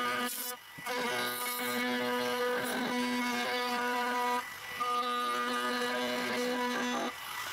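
Compact trim router running at speed as it routs the edge profile of an oak board, a steady high whine. It breaks off briefly twice and stops shortly before the end.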